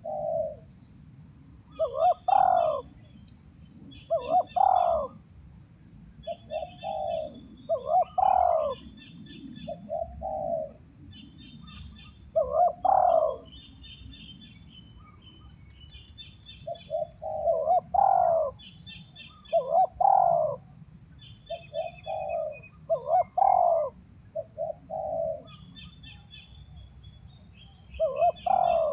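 Spotted doves cooing: a repeated phrase of short low coos with a longer stressed note, about every two seconds. A steady high insect drone runs underneath.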